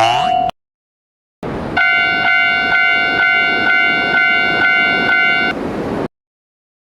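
Railroad crossing alarm: a bright electronic bell tone pulsing about twice a second for nearly four seconds over a rushing noise. It follows a short silence and stops a little before the end.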